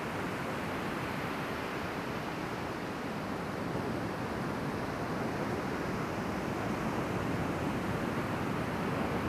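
Ocean surf: a steady rush of breaking waves and whitewash, swelling a little in the second half.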